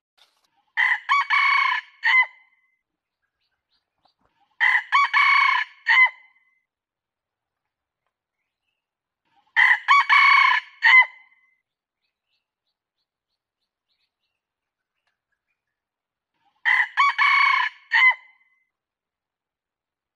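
Red junglefowl rooster crowing four times, each crow a short broken call of a few notes lasting about a second and a half, with silence between crows: a recorded lure call for drawing in wild junglefowl.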